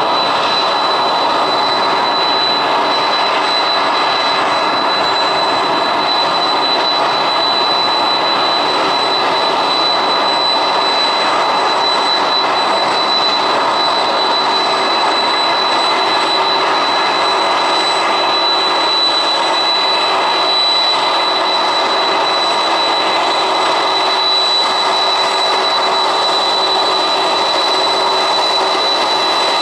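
Boeing 747's four jet engines at taxi power: a steady rushing hum with a thin high whine held on one pitch.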